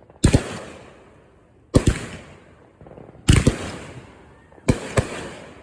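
Fireworks going off: four loud bangs about one and a half seconds apart, each a quick double crack followed by a fading crackle.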